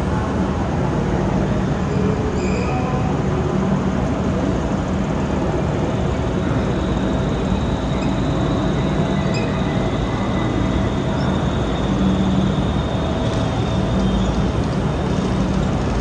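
Comeng electric suburban train pulling slowly into a station platform: a steady rumble with a low hum, and a faint high whine through the middle as it comes in.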